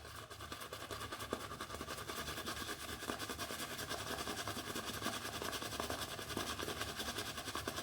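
Shaving brush swirled over wet lather on the face, a soft, quick, even rhythm of brushing strokes as the soap is worked into a lather.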